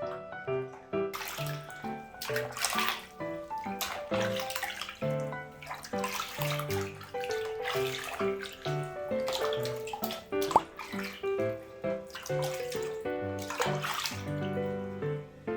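Running water splashing in on-and-off bursts while a puppy is bathed, under background music with a light keyboard melody.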